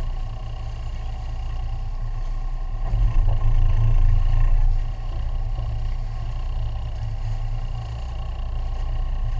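Sportfishing boat's engines running, a steady low rumble that swells louder for about two seconds near the middle.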